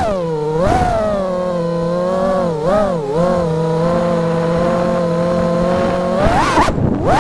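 FPV quadcopter's brushless motors and propellers whining, the pitch rising and falling with the throttle. It holds fairly steady through the middle with two quick dips, then swings fast up and down near the end.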